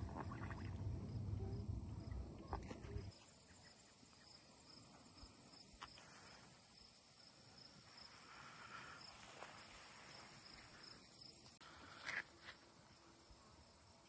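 Faint outdoor ambience of insects trilling steadily at a high pitch. A low rumble, like wind or handling on the microphone, covers the first three seconds and cuts off suddenly, and a few soft clicks follow later.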